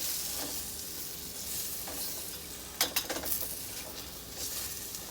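Onions sizzling in a hot pan as they cook down toward caramelization. A utensil stirring them knocks and scrapes against the pan a few times about three seconds in.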